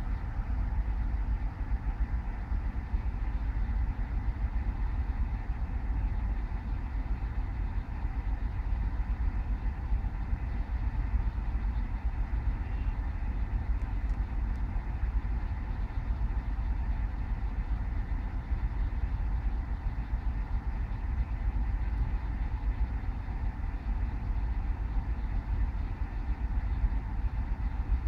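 A steady low rumble with a faint constant hum above it, unchanging throughout.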